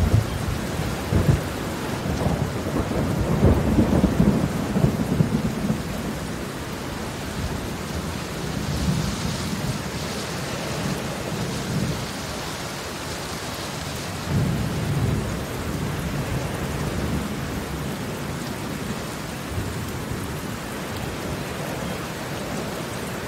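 Heavy rain falling on concrete pavement: a steady wash of drops splashing on the wet surface. Low rumbles swell and fade several times, the strongest in the first six seconds.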